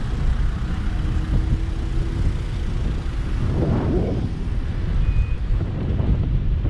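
Wind rumbling on the microphone of a moving Tazer Mini electric scooter, mixed with road noise from the ride. A short wavering burst sounds about three and a half seconds in, and a brief high beep a little after five seconds.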